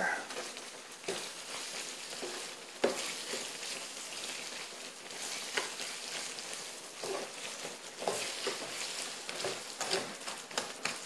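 Crumbled tofu and brown sugar frying in oil in a skillet: a steady sizzle, with a spatula stirring and scraping the pan every second or two as the sugar cooks in.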